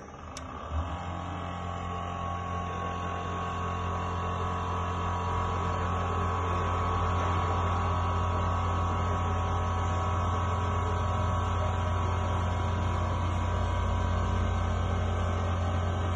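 Trennjaeger Teba 310 metal band saw switched on with a click about half a second in, then its motor and blade running with a steady hum, a little louder over the first few seconds. The head is lowering toward a clamped steel tube and the blade is not yet cutting.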